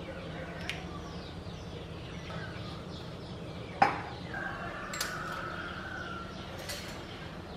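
Kitchen items being handled and set down on a stone counter: one sharp knock a little over halfway in, followed by lighter clicks and clinks of steel ladles in a ceramic utensil holder. Birds chirp faintly in the background.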